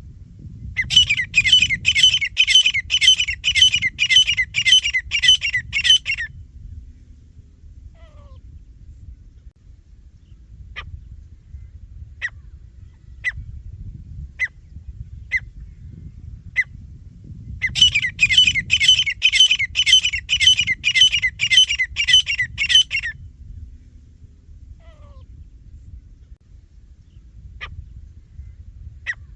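Francolins (teetar) calling: two bouts of loud, sharp, high calls repeated quickly, about two to three a second for some five seconds each, with single short calls about a second apart in between.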